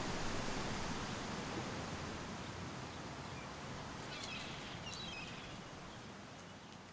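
A hiss of storm noise, thunder and rain, slowly dying away. About four seconds in, small birds chirp faintly a few times.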